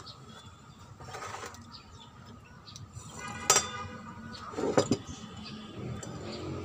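Tableware at a meal: a ceramic mug, a spoon and a glass bowl on a wooden table. One bright ringing clink about halfway through, then a quick cluster of knocks a second later.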